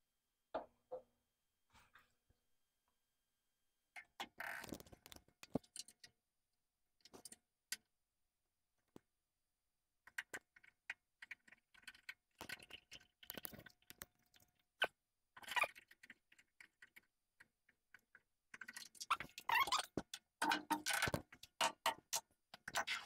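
Small metal clicks, clinks and clatter of tools being handled and set up on a stopped metal lathe, sparse at first and busiest near the end.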